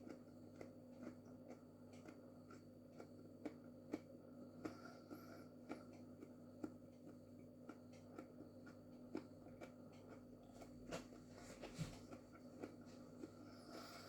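Faint chewing of a raw Dragon's Breath chilli pod: small, irregular mouth clicks over a steady low hum.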